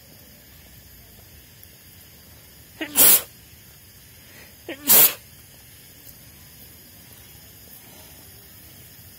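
A person sneezing loudly twice, about two seconds apart. Each sneeze is a brief pitched intake followed by a sharp noisy burst.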